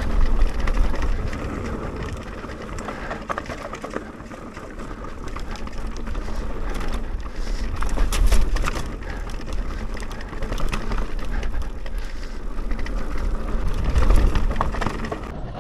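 Mountain bike riding down a dirt trail: steady tyre and riding noise with knocks and rattles over bumps, loudest about halfway and again near the end, and wind rumbling on the microphone.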